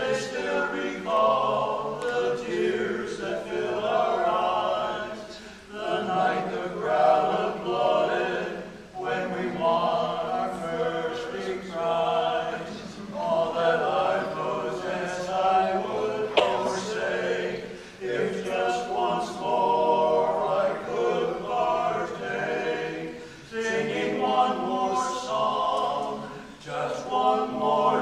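Men's barbershop quartet singing a cappella in close harmony, in sung phrases of a few seconds with short breaks between them.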